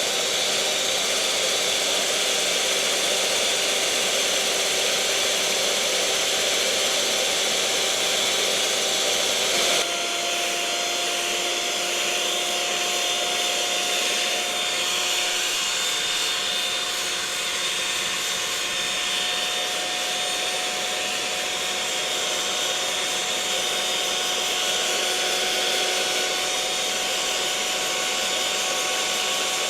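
Electric mixer motor running steadily, a whirring hiss with a thin motor whine. About ten seconds in the whine drops slightly in pitch, then slowly creeps back up.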